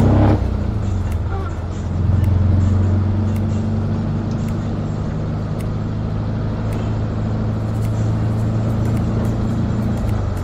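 Mikrolet minibus engine running with road noise, heard from inside the cabin as a steady low drone. It grows a little louder about two seconds in.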